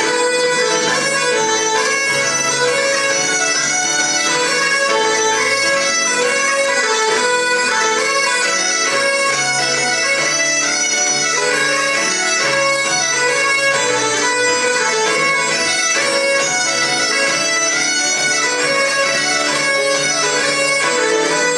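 Live traditional tune on bagpipes with fiddle and keyboard. The pipes' drone holds steady beneath a quick, ornamented melody.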